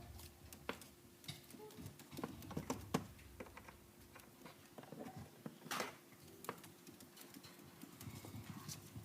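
Sporadic light taps and clicks as an Eclectus parrot moves about and handles objects, with the loudest knock about six seconds in.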